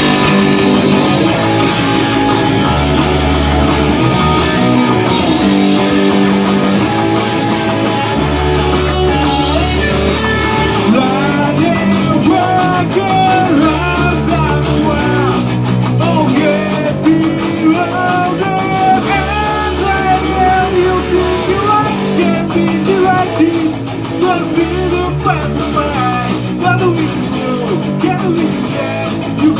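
Rock band playing, guitars over a repeating bass line, starting abruptly on a count-in cue; a bending melody line, likely singing, comes in about eleven seconds in.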